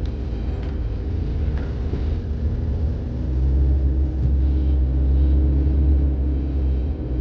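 Steady low rumble of a vehicle travelling on the road, engine and road noise, growing louder about three seconds in.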